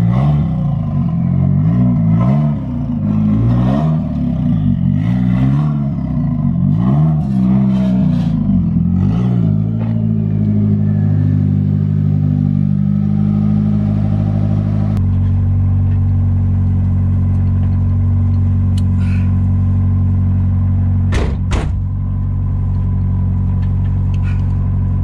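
Nissan SR20DET turbocharged four-cylinder engine revved in about six quick blips, roughly one every second and a half, then settling to a steady idle. Two short sharp clicks come about two thirds of the way through.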